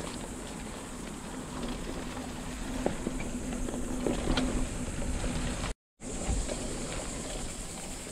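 A Santa Cruz Chameleon hardtail mountain bike being ridden along a dirt trail. There is a steady rumble of wind on the microphone and tyre noise, with scattered sharp clicks and rattles from the bike. The sound drops out completely for a moment a little before six seconds in.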